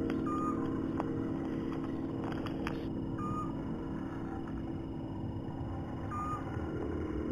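Low, steady ambient drone, with a faint short high blip about every three seconds.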